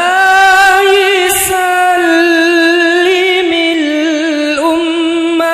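A solo voice singing a long, ornamented wordless melisma in the Arabic shalawat style, holding one high note with quick wavering vibrato and small turns, stepping down slightly partway through.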